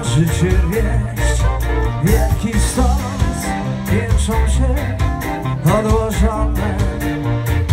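Live folk-rock band music played loud from a stage: a steady drum beat and bass under electric guitar and fiddle lines, recorded from within the crowd on a phone.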